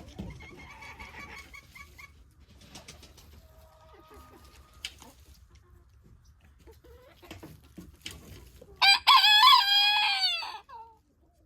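A rooster crows once near the end, one loud call about two seconds long that drops in pitch as it trails off. Before it, hens cluck faintly.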